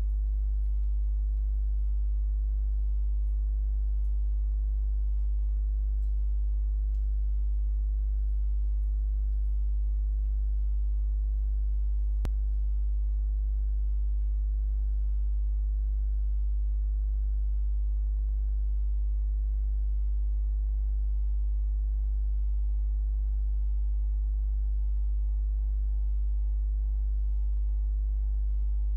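Steady low electrical hum, a mains buzz with a ladder of overtones, holding constant throughout, with one faint click about twelve seconds in.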